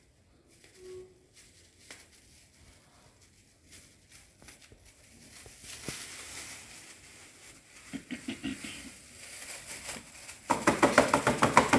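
Thin plastic bag crinkling as thickener powder is shaken out of it into a plastic bowl. Faint at first, it grows louder, ending in a loud burst of rapid crinkling and pattering in the last second or so.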